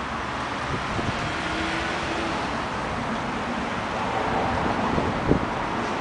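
Steady outdoor background rumble and hiss, like road traffic, with a single short knock about five seconds in.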